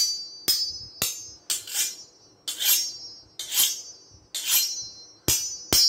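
Thin carbon-steel blade of a Tramontina 22-inch machete tapped with a screwdriver about ten times, roughly once or twice a second. Each strike rings out at a high pitch and fades.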